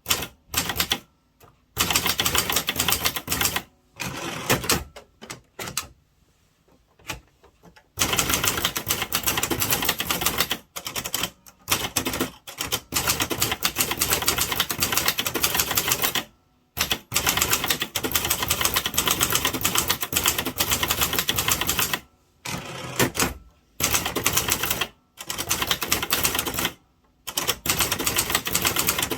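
Gong Byeong-u Korean typewriter (Gong Han-Yeong 201) being typed on fast: dense runs of rapid key strikes, broken by short pauses, with a longer pause about six seconds in.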